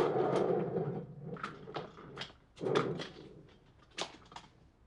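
Swivel office chair being shoved and rolled about on a wooden floor: casters rumbling, then a series of knocks and scuffs with one louder scrape just under three seconds in, dying away near the end.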